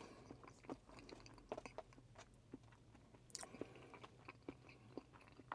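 Quiet chewing and eating sounds of a person eating quickly, with small clicks of wooden chopsticks against a plastic food container.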